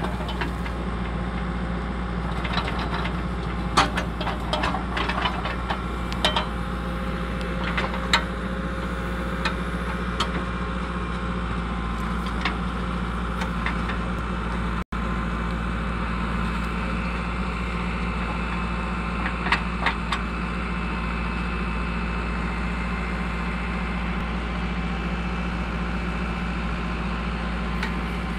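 Diesel engine of a JCB 2DX backhoe loader running steadily, driving its hydraulic earth auger as it drills into the soil, with scattered sharp clicks and knocks in the first several seconds.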